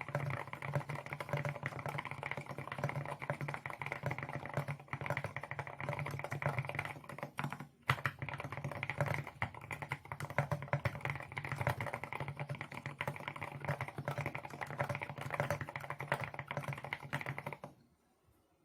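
Continuous rapid typing on an Akko MU01 mechanical keyboard with a wooden case and Akko Rosewood switches, giving a low-pitched clack. There is a brief pause a little before halfway, and the typing stops near the end.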